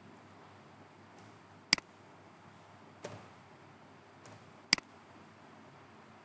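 Two sharp computer mouse clicks about three seconds apart, each a quick double snap of button press and release, with a couple of fainter clicks between them, over low steady hiss.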